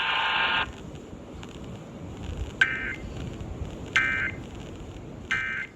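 Emergency Alert System end-of-message signal: three short, identical data bursts a little over a second apart, heard over hiss from the broadcast. Before them, a steady high tone from the end of the alert broadcast cuts off about half a second in.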